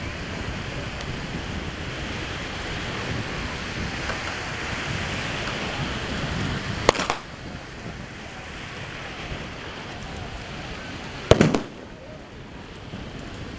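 Steady wind and surf noise on the microphone, broken by sharp bangs of blank gunfire: a single crack about seven seconds in, then a quick volley of several cracks about four seconds later.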